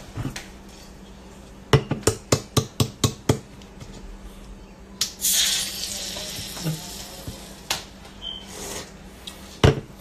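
An aluminium beer can handled and tapped by hand: a quick run of about seven sharp metallic clicks a couple of seconds in, a brief hiss about five seconds in, scattered lighter clicks, and a heavier knock just before the end.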